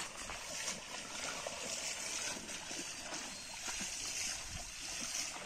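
Shallow pond water splashing and sloshing as people wade through it and drag a fishing net along.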